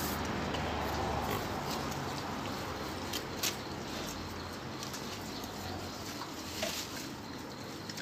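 Pigs grunting in a pen, with a few short sharp sounds about three seconds in and again near the end.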